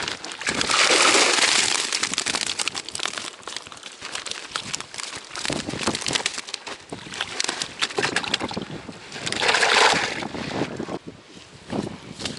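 Strong wind buffeting the microphone in gusts, loudest about a second in and again near the ten-second mark, with crackling in between.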